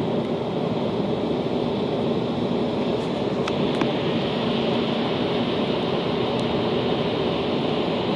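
Steady mechanical hum with a rushing noise, unchanging throughout, with a few faint clicks about halfway through.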